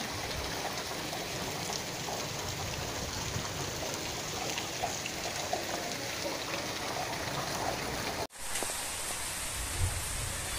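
Heavy rain falling on flooded dirt ground: a steady hiss with scattered splashes. About eight seconds in the sound drops out for an instant and comes back as a steadier, smoother hiss, with a brief low bump near the end.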